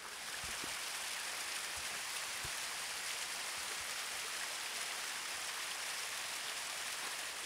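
Small alpine brook running down its steep rocky bed through snow: a steady, even rush of water.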